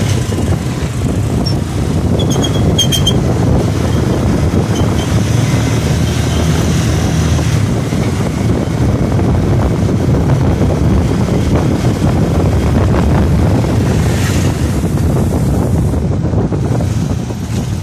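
Wind rushing over the microphone of a moving motorbike, with the motorbike's engine running steadily beneath it.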